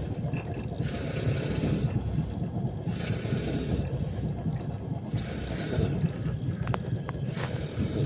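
A man snoring, each rasping breath coming about every two seconds, over the steady low rumble of a moving train. A few short clicks near the end.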